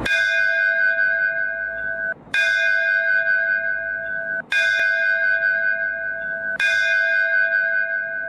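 A bell chime struck four times at even intervals of about two seconds. Each strike rings with a steady, bright bell tone and is cut off abruptly just before the next one.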